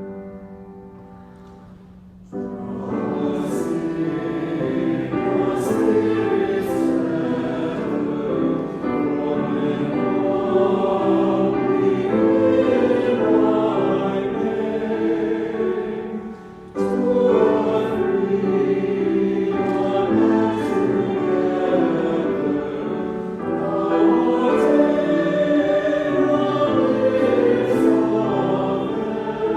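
Church choir singing an anthem in several voice parts. It comes in about two seconds in over a fading held keyboard chord, and breaks off briefly between phrases a little past the middle.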